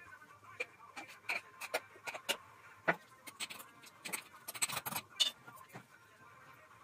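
Steel spoon clinking and scraping against a glass jar while packing down tomato pickle: a string of irregular light clicks and taps, thickest about four to five seconds in.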